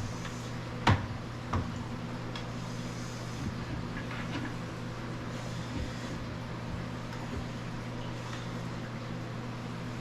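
Knocks and clunks of hands working on a fish tank's filter to change the filter pad, the sharpest about a second in and another just after, with fainter ones later, over a steady low hum.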